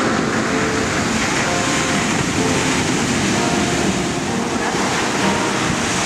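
Ocean surf: waves breaking and washing toward the shore, a steady rushing noise with no single crash standing out.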